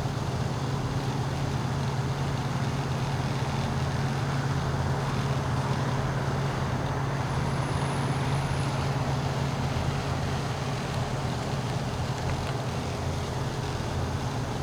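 Diesel locomotives of a freight train running, a steady low rumble with a constant hum underneath.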